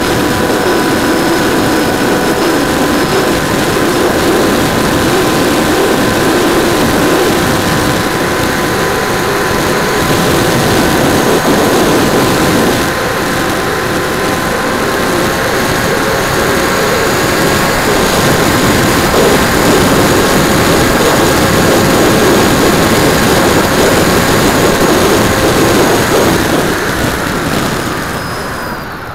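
Bixler 2 RC plane's electric motor and pusher propeller running at a steady whine in flight, with wind rushing over the wing-mounted camera's microphone. Near the end the motor throttles back, its pitch sliding down and the sound fading.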